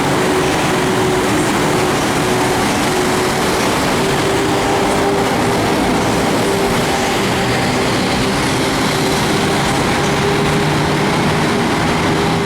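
Electric locomotive hauling a passenger train past the platform: a steady, loud rail rumble with an even electric hum over it.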